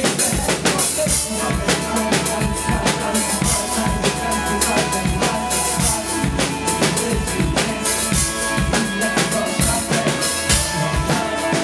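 Drum kit played live over a hip hop backing track: steady kick and snare hits with cymbals, over held keyboard-like notes.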